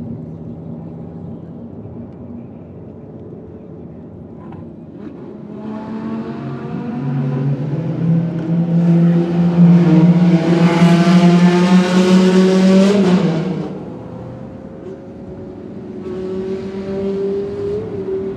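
Sports car engines accelerating hard in a road tunnel, heard from inside a following car: the engine note builds from about six seconds in, climbs in pitch to a loud peak, and drops away sharply about halfway through the second half, followed by a second, smaller acceleration near the end.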